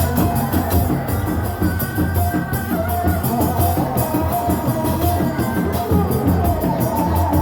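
Music with drums and a wavering melody line.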